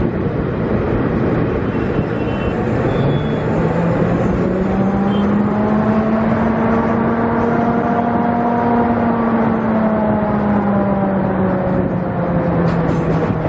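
WDM3D ALCO diesel locomotive working a passenger train, heard from the leading coach over loud wind and track noise. Its engine note climbs over several seconds, holds, then sinks back, with a few sharp clicks near the end.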